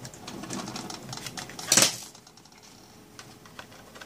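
Small plastic clicks and rattles from hands working on the underside of a Dell Inspiron 5720 laptop, with one sharp, loud snap a little under two seconds in, then a few faint ticks.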